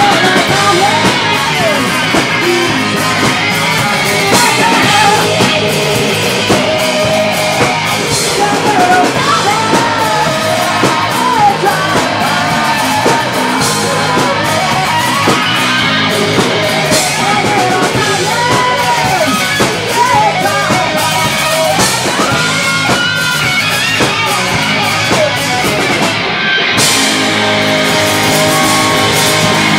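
Rock band playing live, with electric guitar, bass and drum kit and a singing voice.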